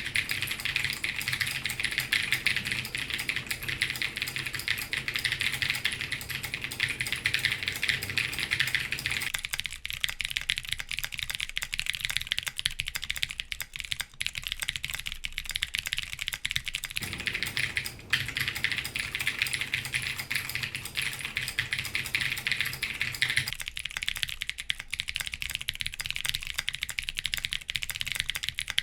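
Continuous fast typing on a custom mechanical keyboard with clicky Razer Green switches, lubed, in an aluminum plate under GMK ABS keycaps: a dense, steady stream of sharp key clicks and clacks.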